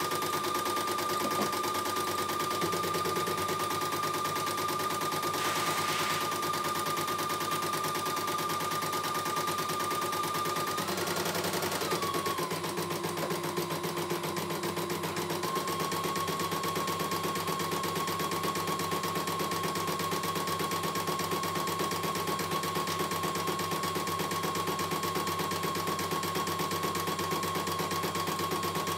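CNY E900 computerised embroidery machine stitching continuously: a fast, rapid-fire needle clatter over a steady motor whine, whose pitch wavers briefly about eleven seconds in and settles slightly higher a few seconds later.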